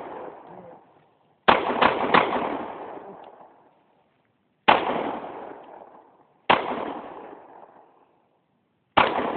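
Glock 22 pistol firing .40 S&W rounds: six shots, three in quick succession about a second and a half in, then three single shots about two seconds apart, each followed by a long echo.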